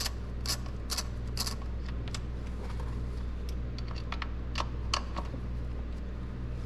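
Ratchet and 10 mm socket clicking in short irregular runs as the throttle-body bolts are worked loose, over a steady low hum.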